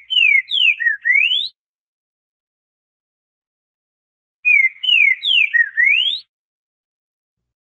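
Green-winged saltator (trinca-ferro) singing: two identical phrases, about three seconds apart, each a quick run of loud, clear whistles, several sliding down in pitch and the last sweeping up high.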